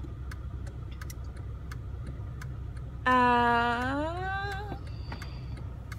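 Car turn-signal indicator clicking about twice a second over the steady low hum of the engine in the cabin. About three seconds in, a woman hums one long note that rises at the end.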